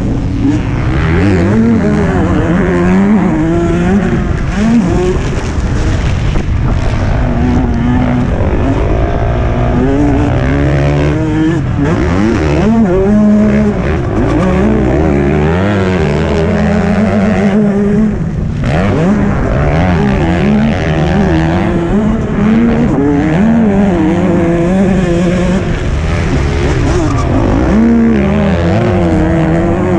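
Several MX2 motocross bikes racing, their engines rising and falling in pitch as the riders open and close the throttle.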